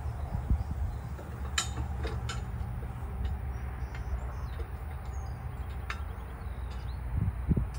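Metal crossing-gate fittings clinking a few times as they are handled and fitted onto the mast, with a low knock near the end, over a steady low rumble.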